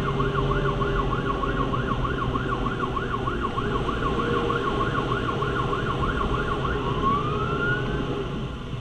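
Fire engine siren in a fast yelp, rising and falling about four times a second, switching near the end to a slow rising wail, over a steady low drone.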